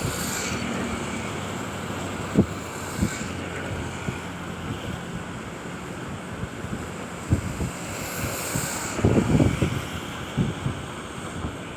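Floodwater discharging through the Hirakud Dam spillway, a steady rushing of water. Wind buffets the microphone in gusts, strongest about nine seconds in and again near the end.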